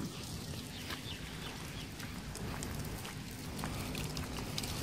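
Outdoor background noise: a steady low rumble with scattered short, high chirps and ticks.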